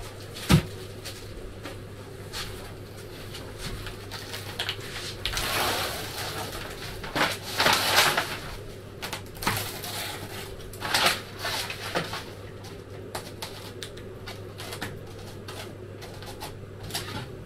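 A sharp knock on the wooden bench about half a second in, then repeated rustling and crackling as the paper backing is peeled off a sheet of self-adhesive polyethylene foam and the foam is smoothed down, over a steady low hum.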